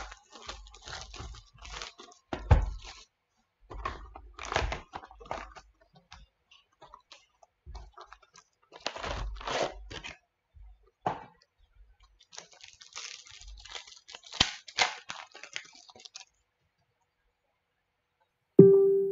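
A sealed box of trading-card packs being unwrapped and opened: plastic wrapping and foil packets tear, crinkle and crackle in irregular bursts. A short, loud tone sounds near the end.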